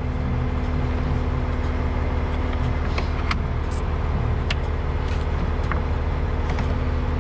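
Heavy tow truck's engine idling steadily, with a few sharp clicks and taps from a tow light bar being handled and fitted to a truck's front bumper.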